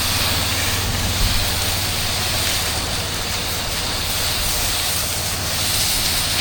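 Steady hiss of a Mo Flo soft-wash system spraying through its hose nozzle over the low, steady running of its engine-driven pump; the spray cuts off suddenly near the end while the engine keeps running.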